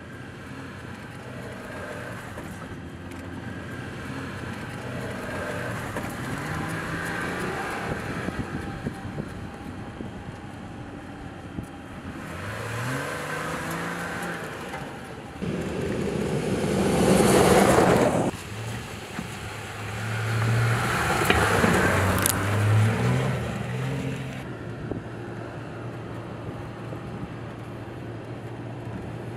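Jeep Gladiator Mojave pickup driving hard over desert sand, its engine revving up several times. There is a loud rush of noise as it passes close, about halfway through, and another a few seconds later.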